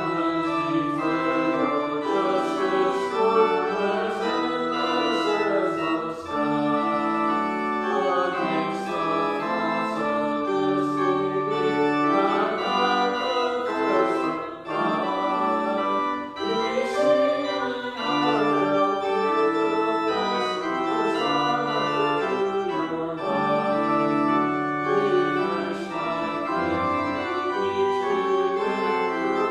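Church organ playing slow music in held chords, the notes changing every second or so.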